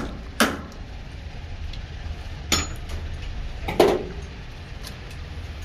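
Sharp metal-on-metal clinks as a lathe's jawed chuck is handled and worked on by hand: four separate strikes, each with a short ring, the last and loudest near four seconds in, over a steady low hum.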